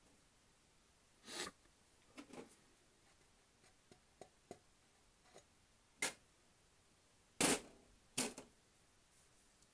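Small parts being handled on a sheet-metal workbench: scattered light clicks and taps, then two louder knocks near the end as a tin of soldering paste and its lid are set down on the metal top.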